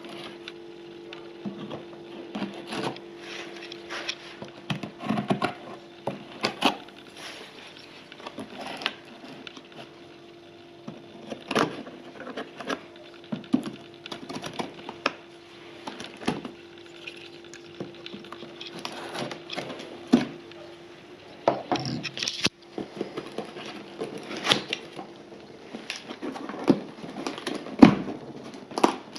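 Folding knife cutting through packing tape and cardboard on a long shipping box, with irregular scrapes, clicks and knocks of the box being handled. A steady low hum runs underneath until about three-quarters of the way through.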